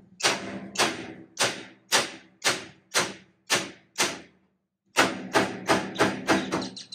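Hammer tapping on metal at a stuck refrigeration compressor to jar it loose from its mount: about eight blows roughly half a second apart, a short pause about four seconds in, then a quicker run of blows, each with a brief metallic ring.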